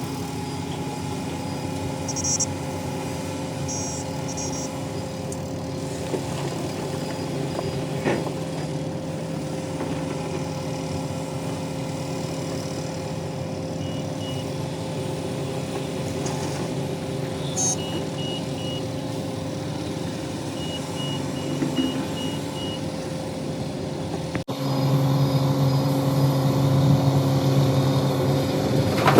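Heavy diesel engine of construction machinery running steadily, with a few short runs of high-pitched beeps. The engine sound jumps abruptly louder near the end.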